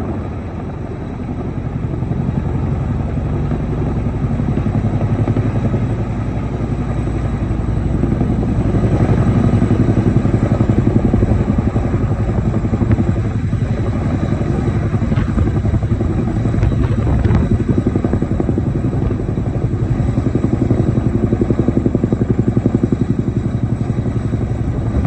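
Helicopter rotor blades beating in a fast, even pulse over the steady engine noise. It grows louder over the first several seconds, then stays loud.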